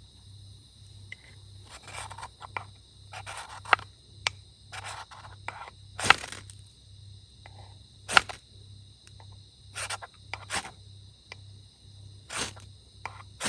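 Irregular scrapes and sharp clicks of camp gear being handled, the loudest about six and eight seconds in, over a steady high chirring of insects.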